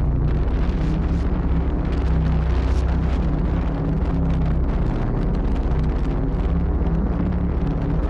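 Strong wind buffeting the microphone, a heavy steady rumble, over the rush of breaking surf.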